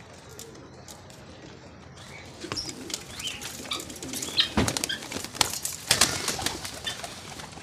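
Domestic pigeons flapping their wings in a flurry of quick wingbeats as they come out of their coop, starting about two seconds in, with some soft cooing.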